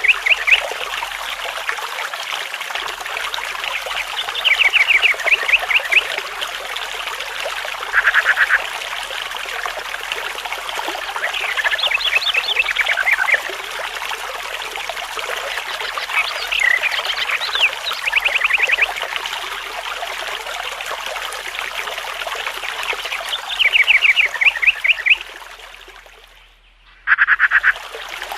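Water trickling steadily, with short, rapid pulsed trills from an animal, most like frogs, breaking in every few seconds. Near the end the sound fades out briefly and comes back.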